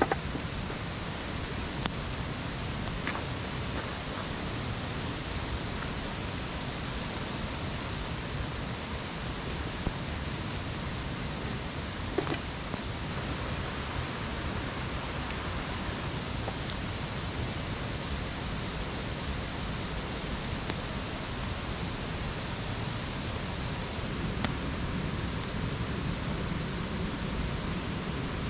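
Wood campfire burning, with a handful of sharp pops and crackles scattered over a steady rushing hiss.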